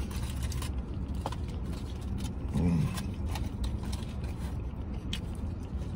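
Tin foil crinkling and small clicks as a wrapped taco is handled and eaten, with chewing, over a steady low hum in a vehicle's cabin. A short hummed "mm" comes about two and a half seconds in.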